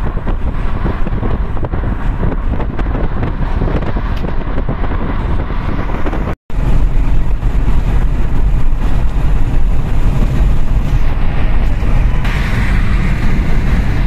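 Steady road and wind noise of a Kia Seltos cruising at highway speed, heard from the cabin. It cuts out for a moment about six seconds in, then resumes slightly louder.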